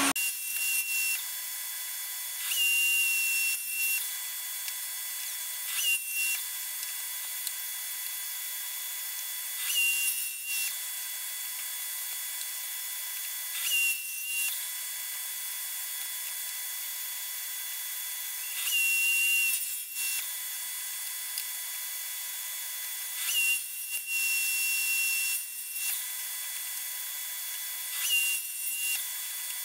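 Table saw running with dust extraction, crosscutting small blocks off a wooden strip: about eight short cuts, each adding a brief higher whine over the steady noise of the spinning blade.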